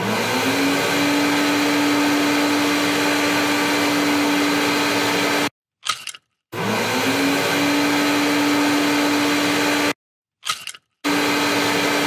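Cordless stick vacuum cleaner's motor spinning up with a rising whine, then running steadily with a loud airflow rush. It cuts off abruptly twice, each time followed by a brief short noise, and starts up again, rising the same way the second time.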